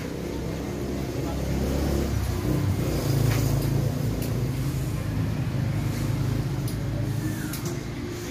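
A car engine running, its pitch and loudness rising about two to three seconds in and then holding steady.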